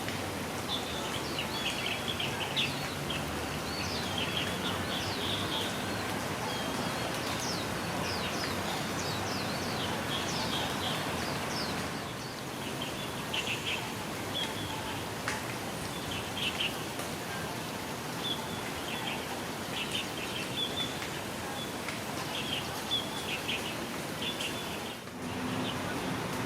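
Small birds chirping in repeated short runs of high chirps over the steady rush of flowing water.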